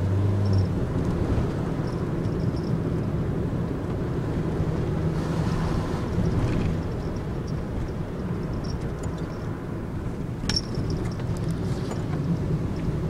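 Cabin sound of a Nissan NV200 van on the move: a steady low engine hum mixed with road and tyre rumble. Light clicks and rattles come from the cab, with one sharper click about ten and a half seconds in.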